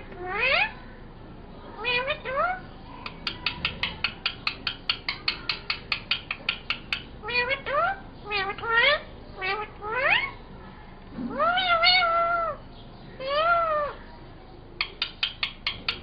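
Rose-ringed parakeet (Indian ringneck) imitating a cat's meow: short upward-sweeping mews and one longer meow that rises, holds and falls. Between them come quick runs of short clicking chatter, about six a second.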